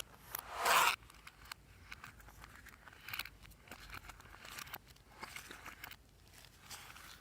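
Glossy slime being worked by hand: a loud squelching swish about half a second in, then a run of small sticky pops and crackles as it is pressed and stretched.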